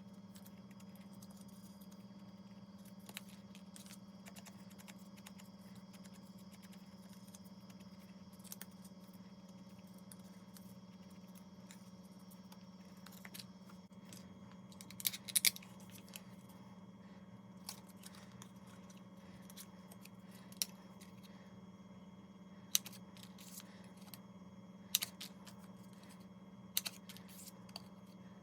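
A steady low hum with scattered light clicks and taps, several close together about fifteen seconds in.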